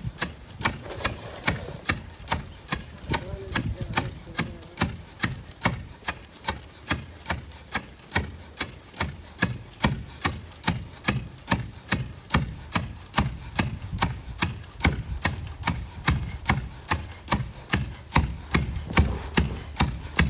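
Two long wooden pestles pounding pearl millet (mahangu) in a wooden mortar, striking in turn. The thuds come steadily and evenly at about three a second.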